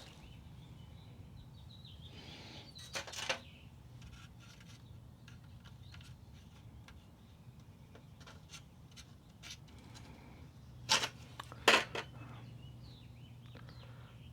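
Light clicks and taps from handling small grille-mounting clips, with two sharper clicks about eleven seconds in, over a low steady hum.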